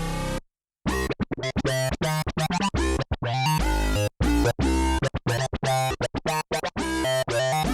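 Sequential Take 5 analog synthesizer playing a preset: a held sound cuts off just after the start, and after a brief silence a fast sequenced pattern of short, choppy notes with a deep bass begins about a second in.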